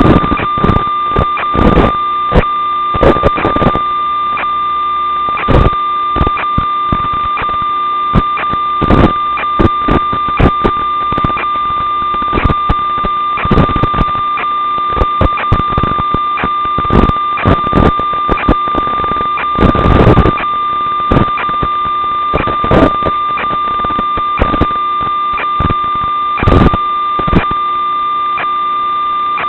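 Radio static from an FPV video link's audio channel: a steady electronic whine at a fixed pitch with irregular crackles and pops as the signal breaks up, cut off above the treble like a narrow radio audio channel.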